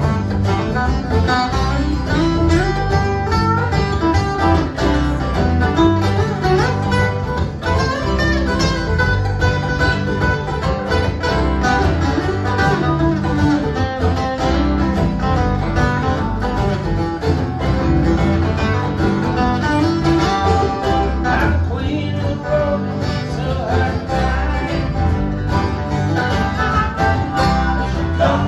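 Live acoustic string band playing a country-bluegrass tune: acoustic guitars picked and strummed over a steady bass line.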